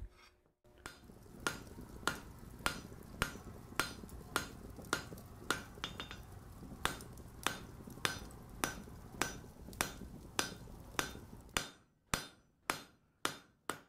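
Blacksmith's hammer striking on an anvil in a steady rhythm, about two blows a second, over a low steady background. Near the end the background drops away and a few separate blows follow.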